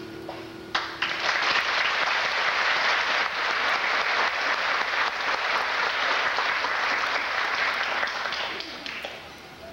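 An audience applauding, starting about a second in over the fading last acoustic guitar chord and dying away near the end.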